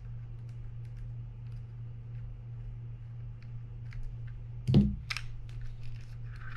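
Faint clicks and ticks of a small screwdriver working the plate screws on a Penn Spinfisher 5500SS spinning reel, over a steady low hum, with two louder knocks near the end as the reel's parts are handled.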